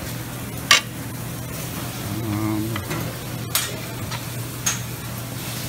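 Busy restaurant din with a steady hum, a few sharp clinks of serving tongs and plates, the loudest just under a second in, and a faint voice in the background a little after two seconds in.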